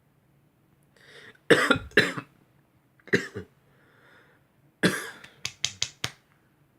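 A man coughing: two sharp coughs, another about a second later, then a quick string of four or five short coughs near the end.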